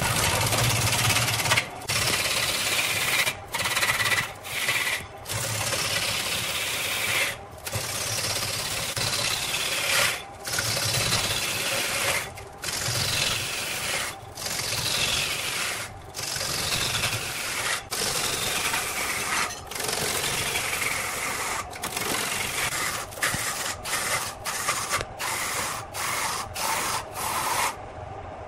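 Turning tool cutting into a spinning jackfruit wood blank on a lathe: a harsh scraping hiss in repeated passes, broken by many short breaks, over the low hum of the running lathe.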